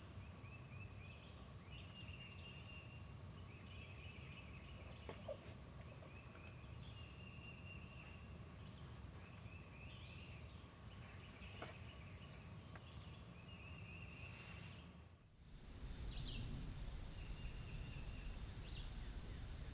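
Birds calling outdoors: a short, high trill repeated about every one to two seconds over quiet background noise. Near the end the background changes and a faint, steady high insect hum appears.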